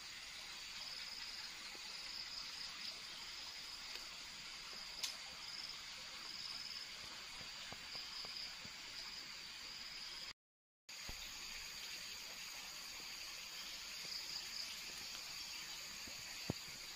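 A steady, high-pitched insect chorus buzzing over a soft hiss of forest ambience, with a couple of faint clicks. The sound cuts out for about half a second roughly ten seconds in.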